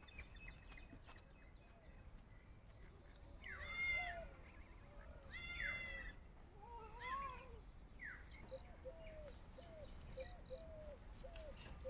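Faint animal calls: two meow-like cries about four and six seconds in, then softer calls and a run of short, quick repeated calls, over a thin, high, steady whine.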